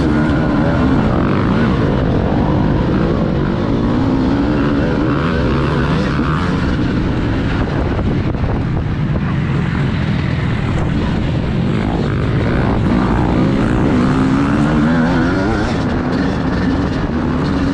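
TM Racing 250 motocross bike's engine at racing revs, heard from on board, its pitch rising and falling with the throttle.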